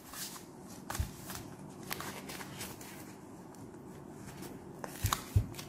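Rustling and soft scraping of a wrist blood pressure monitor's fabric cuff as it is handled and wrapped around a wrist, with a few light clicks and taps, several of them near the end.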